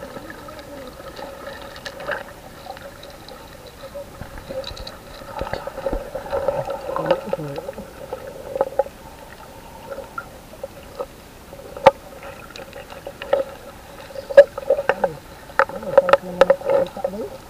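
Water as heard by a camera held underwater: a steady muffled hum with bubbling and splashing. It grows busier about five seconds in and again near the end, with a few sharp clicks.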